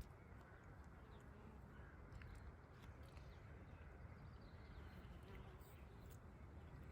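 Near silence: faint outdoor ambience with a low rumble and a few faint bird calls.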